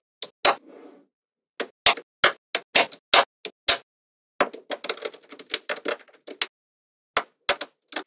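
Small magnetic balls clicking sharply as blocks and a sheet of them snap onto a stack of magnetic balls. The clicks come singly or in quick runs, with a dense burst of rattling clicks in the middle as a sheet settles into place.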